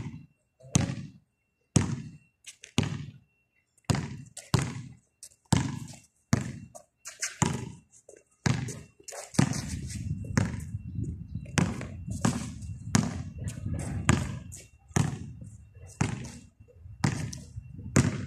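A basketball being dribbled on a concrete court: sharp bounces, one every half second to a second. A low rumble comes in about halfway through.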